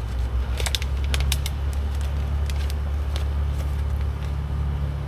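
Nylon peel ply crackling in short, irregular clicks as it is pulled away from a cured fiberglass patch, over a steady low hum.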